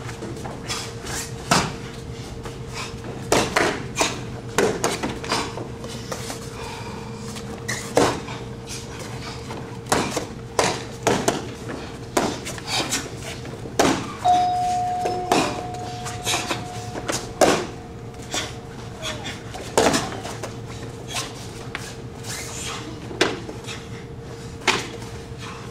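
Karate form performed barehanded: sharp slaps and smacks of hands striking hands and body, irregular and sometimes in quick clusters, over a steady electrical hum. A steady high tone sounds for about four seconds midway.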